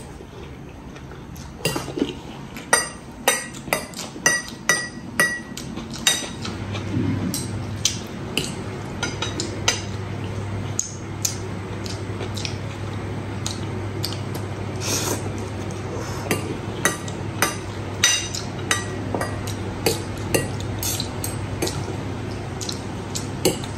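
Metal fork and spoon clinking and scraping against a ceramic bowl while spaghetti is twirled and eaten: many short sharp clinks, some ringing briefly. A low steady hum comes in about six seconds in.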